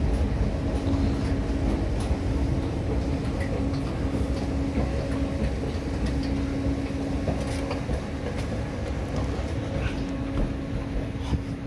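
Steady low rumble and mechanical hum of a railway station, with a held tone that fades out near the end and a few faint knocks.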